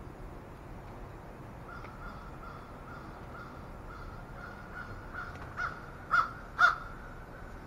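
Crows cawing: a quick run of short, evenly spaced calls that starts faint and grows louder, ending in three loud caws about half a second apart near the end.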